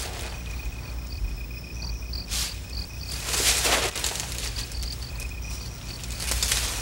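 Crickets chirping steadily in a night soundscape over a low hum, with a few short swishing noises about two and a half, three and a half, and six and a half seconds in.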